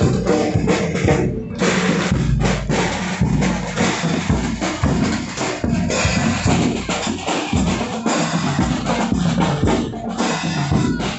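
Marching band playing at full volume, its bass and snare drums loudest, with brass carrying the tune over them.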